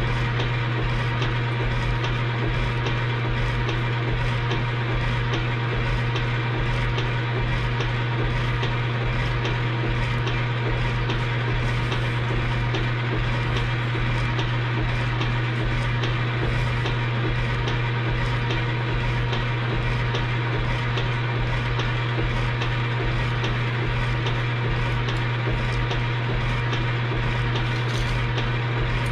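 Metal-cutting machine tool running steadily while it machines metal: a strong constant low hum with a quick, regular ticking over it.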